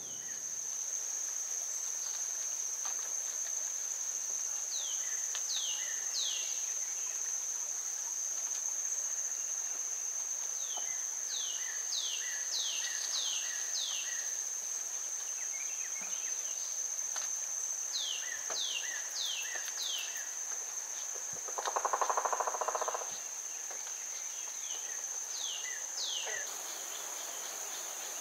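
Woodland insects keep up a steady high-pitched trill throughout. Short series of falling whistled notes, like a songbird's, recur every few seconds. A louder buzz passes for about a second and a half around three-quarters of the way in.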